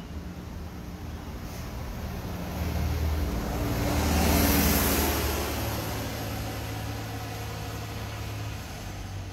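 A motor vehicle driving past on the street, its engine and tyre noise swelling to the loudest point about four and a half seconds in and then fading, with a low engine hum from traffic continuing afterwards.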